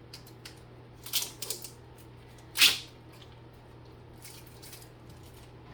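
Short scrapes and rustles of kitchen food handling: a quick cluster about a second in and one louder swish about two and a half seconds in, over a steady low hum.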